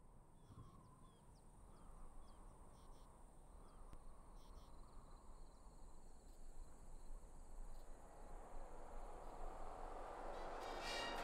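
Quiet desert ambience with scattered short bird chirps over a steady high hiss, then a vehicle approaching along the road, its noise swelling steadily louder toward the end.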